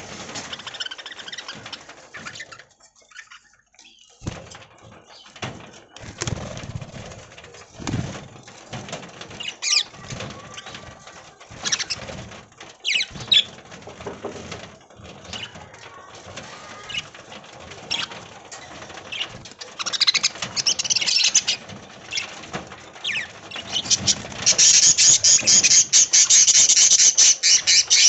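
A flock of budgerigars in an aviary chirping, with scattered short calls and clicks. Near the end they break into a loud, dense, rapid high chatter.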